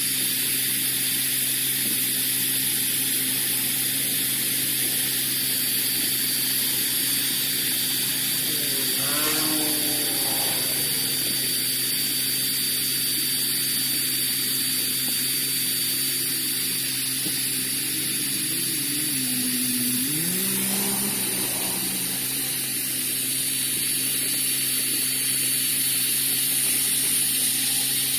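Small battery-powered camping blower running steadily, pushing air through its rubber nozzle into an air mattress valve. The sound is a constant motor whine with rushing air, unchanged throughout.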